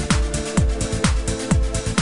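Electronic dance background music: a kick drum about twice a second, each beat dropping in pitch, over sustained synth chords.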